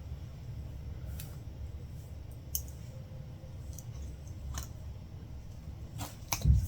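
Latch hook tool and yarn being worked into rug canvas: scattered light clicks, a few seconds apart, then a quick cluster with a soft thump near the end, over a low steady hum.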